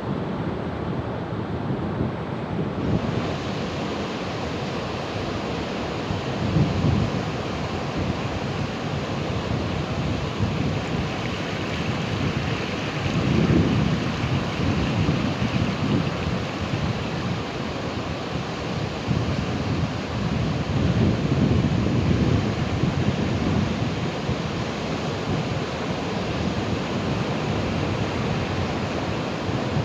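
Ocean surf: a steady wash of breaking waves, with heavier, deeper rumbling surges of breakers about every six to seven seconds.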